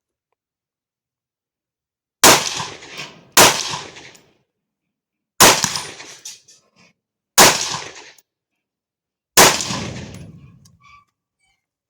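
Five rifle shots from a carbine, fired at uneven intervals over about seven seconds, each followed by a long echo that dies away.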